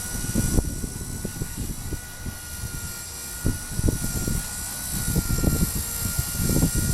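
Blade mCP X micro RC helicopter's motor and rotor giving a steady high-pitched whine, over heavy wind buffeting the microphone in uneven gusts.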